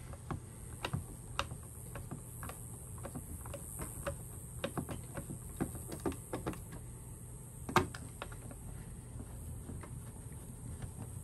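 Hand screwdriver tightening the mounting screws of an old-work electrical box in drywall: irregular small clicks and ticks as the screws turn and the clamp draws the box tight, with one louder click about eight seconds in.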